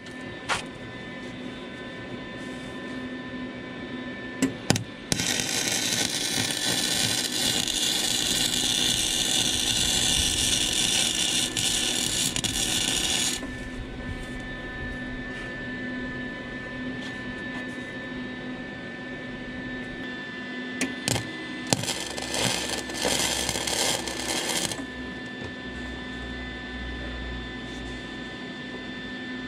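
Flux-core wire-feed welder arc: a long, even, sizzling bead starting about five seconds in and lasting about eight seconds, then a shorter, crackling burst of welding near the middle of the second half, over a steady hum.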